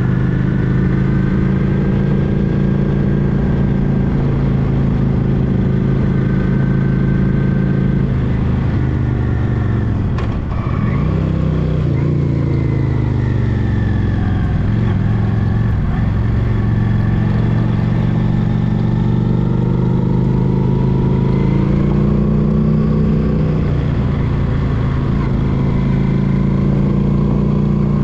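Honda Shadow Spirit VT750's V-twin engine running steadily under way. About ten seconds in, its note drops sharply as the throttle comes off for a bend, then rises again. After a second dip it climbs back to a steady cruise.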